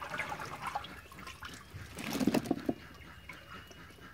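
Irregular rustling and light knocks as small bitter gourds are handled in a wicker basket, busiest about two seconds in.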